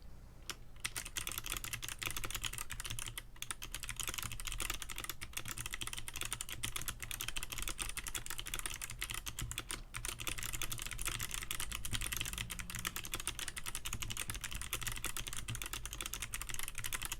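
Continuous fast typing on a 60% mechanical keyboard with Kailh Box Navy click switches, TaiHao ABS keycaps and a cheap plastic case: a dense stream of sharp clacks, starting about a second in.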